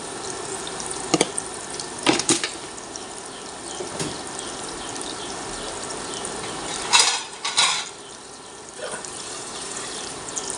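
Garlic frying in oil makes a steady sizzle. Over it, a metal spoon clinks and knocks against a steel bowl and a plastic jar several times, loudest as a pair of clatters about seven seconds in.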